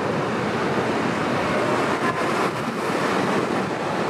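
Subway train running past the platform: a steady rush of wheel and rail noise with no distinct beats.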